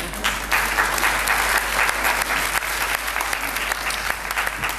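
Audience applauding: dense clapping from many hands that builds quickly in the first half second and eases slightly near the end.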